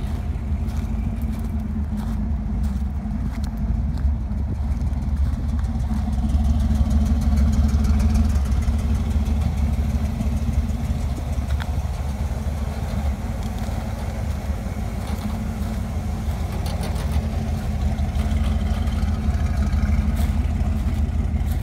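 V8 engine of a 1946 International Harvester rat rod pickup idling with a steady low rumble.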